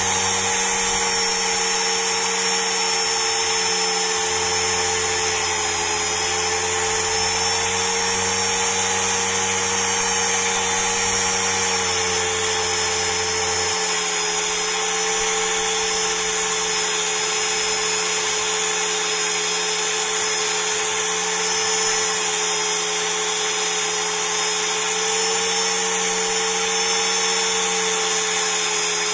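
Electric motor running a green polishing wheel at a steady speed, a constant whine with a high hiss, as a steel screwdriver shaft is polished against the wheel.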